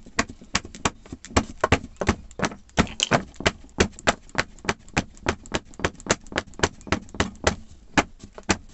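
Rapid, steady knocking from a hand tapping a freshly filled silicone mould, about four knocks a second, to settle the wet casting compound.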